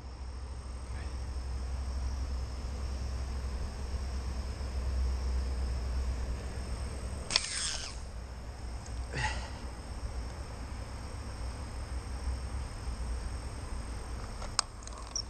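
Insects droning steadily in a high buzz over a low rumble on the microphone, with two brief sweeping sounds around seven and nine seconds in and a sharp click near the end.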